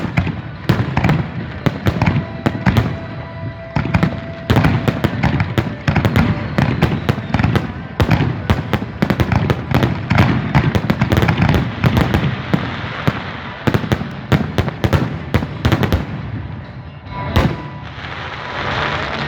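Fireworks going off in a dense barrage of rapid cracks and bangs that thins out after about sixteen seconds, with one last loud bang near the end.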